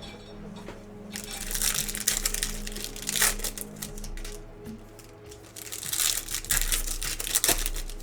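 Foil trading-card pack wrappers crinkling and tearing as packs are opened, in two rustling bursts, with background music underneath.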